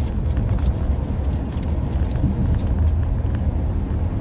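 Steady low rumble, like a car engine running, with scattered small clicks over it.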